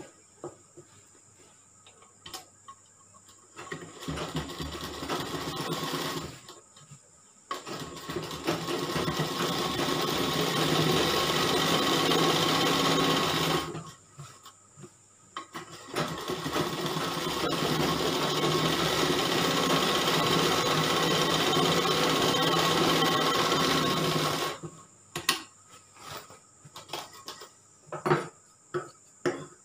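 Sewing machine running as it stitches a seam, in three runs: a short one about four seconds in, then two long steady runs of about six and nine seconds with a brief stop between. A few light clicks of handling near the end.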